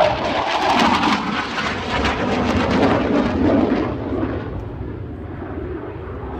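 BAE Hawk 127 jet trainer passing by, the rumble of its Rolls-Royce Adour turbofan falling in pitch as it goes past and fading over the last couple of seconds.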